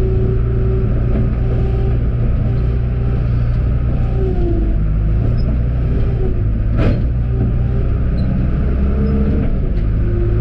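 John Deere 310G backhoe's diesel engine running steadily under hydraulic load while digging, its pitch shifting a little as the load changes. A single sharp knock about seven seconds in.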